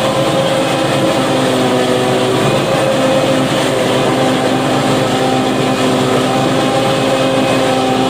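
Tractor engine running steadily under load, driving a tractor-mounted Fimaks MC10X forage harvester that is chopping corn stalks for silage; a loud, steady mechanical drone with a constant hum.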